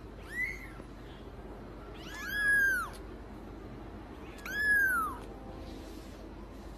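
White long-haired kitten meowing three times, each call rising then falling in pitch: a short, faint mew near the start, then two longer, louder mews about two seconds and four and a half seconds in.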